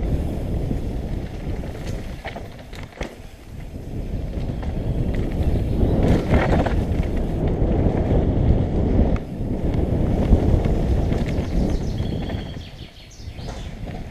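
Downhill mountain bike riding fast down a dirt forest trail: tyres rumbling over the ground, with short rattles and knocks from the bike over bumps and wind noise on the microphone. The noise eases briefly twice, about three seconds in and again near the end.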